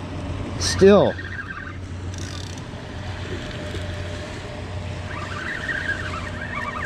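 Steady low engine rumble of a distant motor, most likely river traffic, with a single spoken word about a second in and faint wavering higher tones joining after about five seconds.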